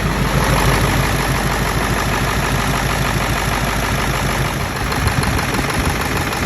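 Ford 7.3 Powerstroke V8 turbo-diesel idling steadily with its diesel clatter, just after a cold start without the block heater, now that its injectors have been shimmed.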